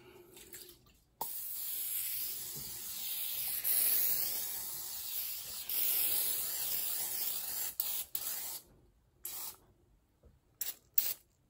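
Aerosol can of cooking spray greasing a glass baking dish: one long continuous hiss that starts suddenly about a second in and lasts about seven seconds, then a few short spurts near the end.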